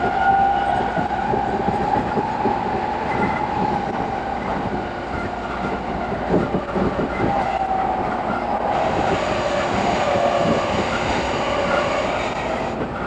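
E217 series commuter train running, heard from inside a carriage and sped up six times: a steady rumble of running noise with rapid, crowded wheel clicks over rail joints and a wavering whine that slides up and down.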